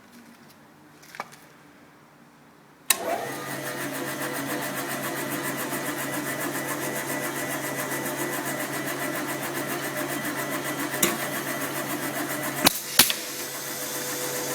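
Electric motor of an MS3112 drilling-mortising machine switched on about three seconds in, then running steadily with a fast, even hum. A few sharp clicks near the end.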